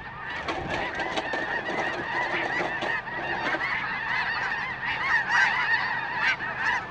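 A large flock of geese in flight, honking continuously with many calls overlapping, growing louder about five seconds in as the flock comes closer.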